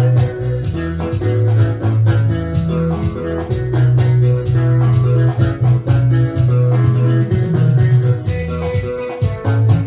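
Band music with no singing: bass guitar holding and changing low notes under guitar, with a drum kit keeping a steady cymbal beat.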